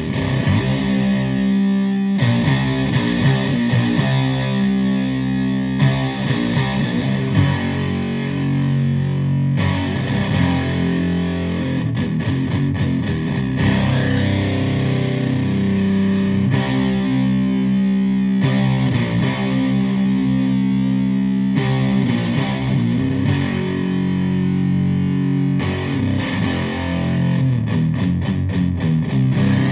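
Electric guitar in drop C, a Stratocaster, playing heavy riffs with held chords through a Russian Big Muff fuzz pedal into a Fender Twin Reverb–style amp; the fuzz distortion runs throughout, with the chords changing every few seconds.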